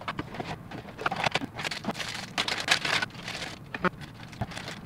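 Thin clear plastic bag around a mini figure crinkling and crackling in the hands, in quick irregular bursts, as it is cut open with scissors.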